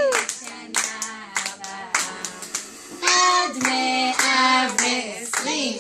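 A small group clapping in a brisk, uneven patter, joined about three seconds in by children and women singing together over continued clapping.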